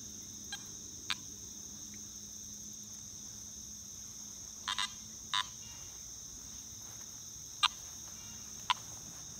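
Steady high-pitched insect chorus of crickets, with about six short beeps scattered through it (a quick pair about halfway, the loudest near the end): target tones from a Garrett AT Max metal detector as its coil is swung over the ground.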